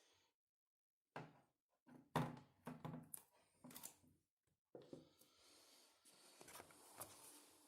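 Handling of a phone's box and packaging: a string of light knocks and thunks, then a longer scraping rustle from about five seconds in.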